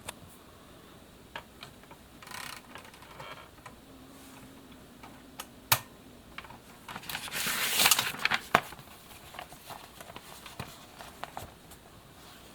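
1979 Kyungbang Clover 950 Hangul typewriter at work: scattered sharp key and mechanism clacks, with a short rattle about two seconds in and a louder, denser run of clacks a little past the middle.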